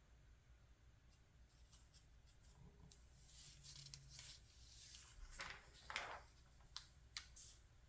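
Glossy magazine pages being handled and turned, faint overall: a soft paper rustle about three seconds in, then a few short, sharp paper snaps and flicks near the end.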